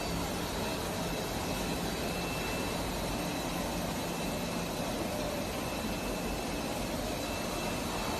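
Automatic cutting machine running with a steady, even rushing noise and faint high whining tones over a low hum.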